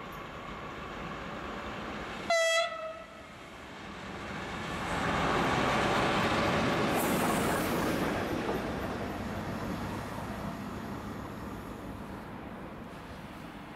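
A short single-note locomotive horn blast about two seconds in, then two coupled DB diesel-hydraulic locomotives of the V 90 family with their wagons run past close by, the noise of engines and wheels on rail swelling, peaking and slowly fading away.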